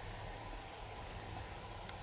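Rural outdoor ambience: a steady hiss and low rumble with a faint steady tone, a few faint high chirps and a single click near the end.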